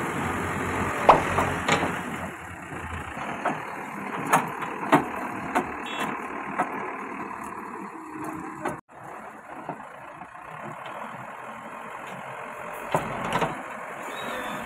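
JCB backhoe loader's diesel engine running under load, with scattered sharp metallic clanks and knocks from the bucket and arm working against the dump truck.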